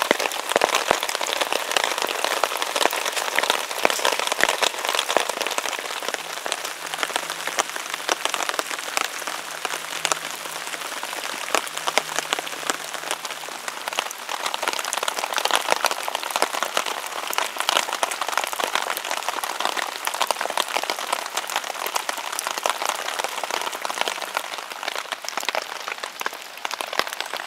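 Steady rainstorm falling on a tarp and an open plastic MRE pouch beneath it, a dense hiss of many small drop hits.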